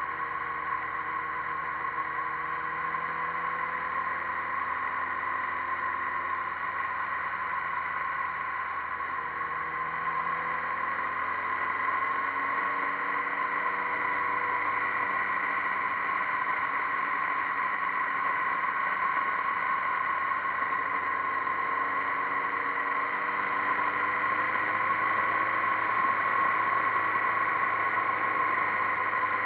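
Motorcycle engine running under way, heard from a camera mounted on the bike, with steady wind and road rush. The engine note climbs slowly, drops about a third of the way in and again about two thirds in as gears change, then climbs again.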